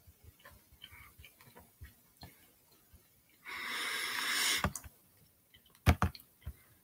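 Faint, irregular crunching clicks of granola cereal being chewed with the mouth closed. About halfway through comes a hissing rush for about a second, and near the end two sharp knocks in quick succession.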